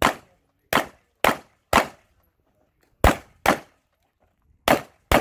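Pistol shots fired at a fast practical-shooting pace, eight sharp cracks in all. Four shots come about half a second apart, then after a short pause two pairs follow, each pair about half a second apart.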